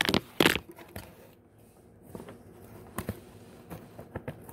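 Handling noise as a charger cable is fumbled into a phone in a cardboard holder. Two sharp knocks come in the first half second, then scattered soft clicks and rustles.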